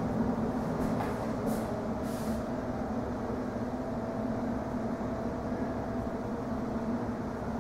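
Steady low rumble with a constant hum, the background and handling noise of a camcorder being carried through an empty room. Two brief soft scuffs come about one and a half and two seconds in.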